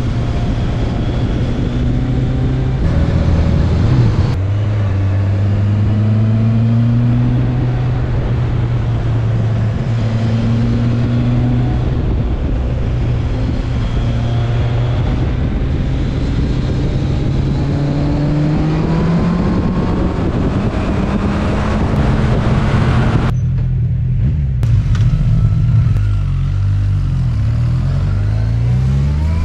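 Inline-four motorcycle engine running under way, its note rising and falling with the throttle through the bends. It climbs steadily for a few seconds past the middle, drops back, and near the end shifts through several quickly changing pitches.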